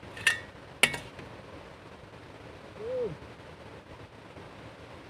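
Two sharp knocks about half a second apart, each ringing briefly, then a short hoot-like call about three seconds in that rises and falls in pitch.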